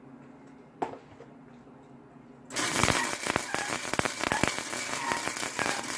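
Electric welding arc crackling steadily for the second half, welding a handle onto a Damascus billet. Before it, one light knock.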